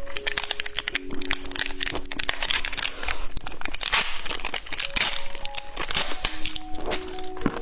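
Rapid crinkling and crackling of candy and its plastic wrapper, over light background music with held notes.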